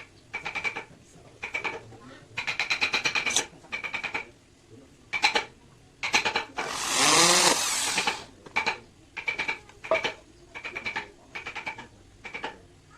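Small electric drill run in short bursts, roughly one a second, drilling holes in the wood of a cage frame, with one longer, louder run about seven seconds in.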